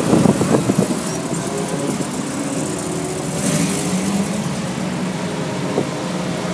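Ferrari V8 sports cars driving slowly past: a Dino GT4's engine running with uneven loud pulses in the first second, then a steady burble with small rises in pitch as the cars roll by, and a short rush of hiss a few seconds in.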